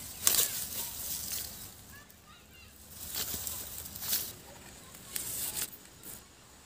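Leaves and grass brushing and rustling against the phone as it pushes through dense plants: a few sharp swishes, the loudest just after the start, others in the second half. Faint bird chirps in between.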